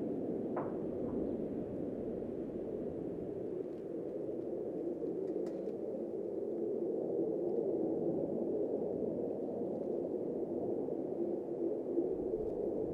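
Steady, distant rumble of jet engines from a formation of Boeing F/A-18 Super Hornets flying past, swelling slightly about halfway through.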